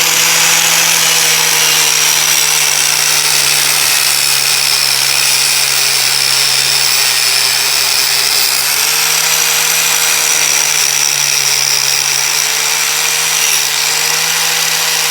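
Electric angle grinder running steadily against the cylinder head of a vintage Briggs and Stratton engine, cleaning off built-up deposits. Its pitch sags slightly now and then as it is pressed into the metal.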